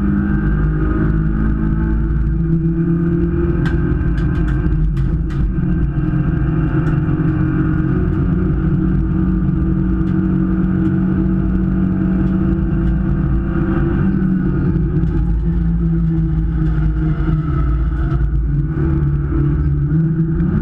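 A 1.6-litre race car engine running hard, heard from inside the stripped cockpit, its pitch rising and falling with the throttle and gear changes through the corners. A few sharp knocks sound about four to five seconds in.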